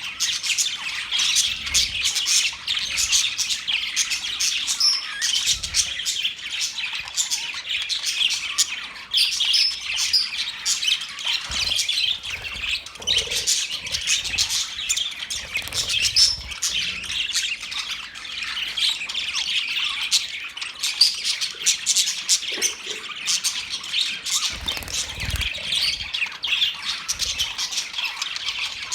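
Budgerigars chirping and warbling without a break, a dense run of quick high chirps with the odd harsher squawk.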